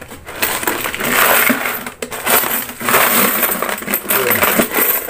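Money tipped out of a jar-shaped piggy bank onto a pile on a tiled floor: crumpled paper banknotes rustling and tumbling, in several surges, with clinking.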